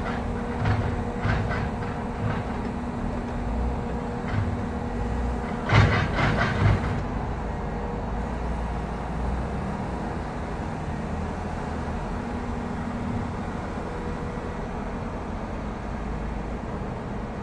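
Cat 538 forestry machine's diesel engine and hydraulics running steadily while the TreeKing processor head is worked, giving several sharp metal clanks and knocks in the first seven seconds, the loudest cluster about six seconds in. After that only the steady engine running.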